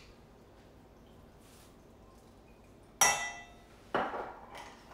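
Kitchenware clinking on a work table: a sharp clink with a short ring about three seconds in, then a duller knock about a second later.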